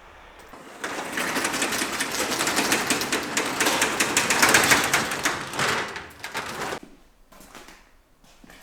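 A power tool running with a fast, dense rattle for about six seconds, starting about a second in and stopping near the end, followed by a few light knocks.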